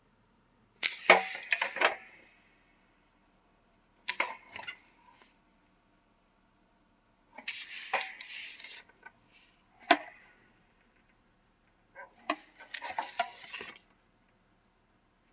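Hard objects clattering and knocking in about five separate bursts, each lasting up to two seconds, with brief ringing and quiet gaps between; the first burst is the loudest.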